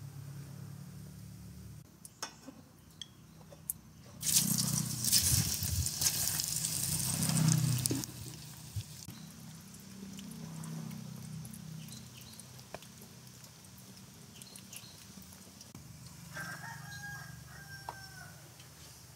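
Potato slices deep-frying in a pot of hot oil: a loud sizzle for about four seconds, then the oil bubbling more quietly with scattered pops.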